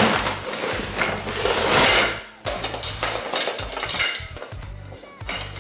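Metal tent pole sections clinking and clattering against each other and on a hard floor as they are tipped out of their bag and handled, in irregular knocks.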